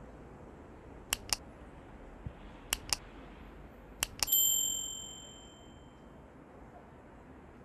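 Subscribe-button animation sound effect: three pairs of quick mouse clicks, then a bright bell ding that rings out and fades over about a second and a half.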